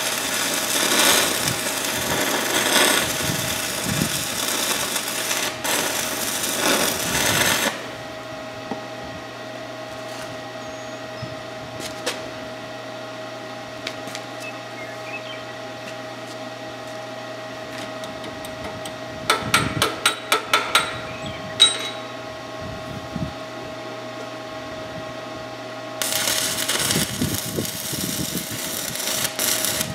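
Stick-welding arc from a Forney Easy Weld 110 stick welder crackling as metal is built up on a worn planter shaft. It stops sharply about eight seconds in and strikes up again near the end. In between there is a steady hum and, about twenty seconds in, a quick run of sharp taps.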